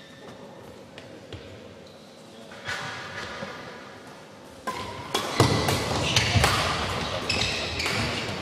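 Badminton rally on an indoor court: sharp cracks of rackets striking the shuttlecock, with shoe squeaks and thudding footfalls on the court floor. It starts about halfway through, after a quieter pause while the serve is readied.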